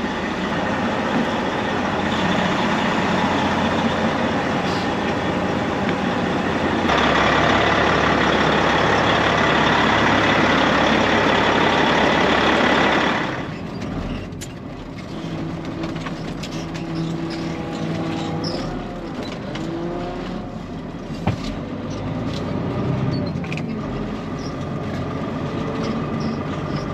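Peterbilt 379 truck: a loud, steady rushing hiss that grows louder about seven seconds in and cuts off suddenly about halfway through. After it, the diesel engine runs more quietly, its tone shifting up and down.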